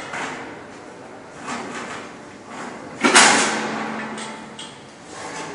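Metal leg frame knocking against the metal side of a packing machine's conveyor as it is fitted: a few lighter knocks, then a loud metallic clang about three seconds in that rings on and fades over a second or so.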